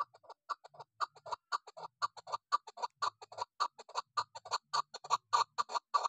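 Female chukar partridge calling in a fast series of short, evenly spaced notes, about six a second, growing louder through the run.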